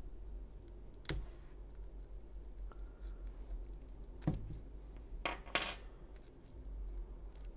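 Plastic shrink wrap on a vinyl record jacket being picked at and torn open with fingernails: a sharp crackle about a second in, another around four seconds, and a short burst of crinkling around five and a half seconds.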